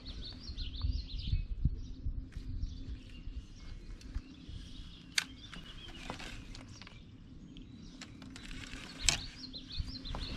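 Birds chirping and singing, with a steady low hum underneath and a few sharp clicks and low taps from fishing tackle being handled on a boat deck.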